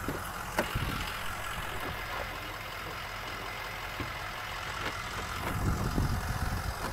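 Ford F250's 6.0-litre turbo-diesel V8 idling steadily, with a few short clicks and knocks from someone moving around the truck and climbing into the cab.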